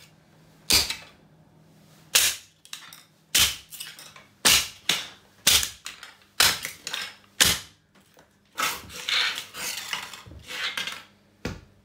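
Rubber safety boots stomping on a hard plastic toy on a tiled floor: a run of sharp cracks and snaps as the plastic breaks under each stomp, about one a second. Near the end comes a stretch of crunching and scraping of plastic fragments, then one last stomp.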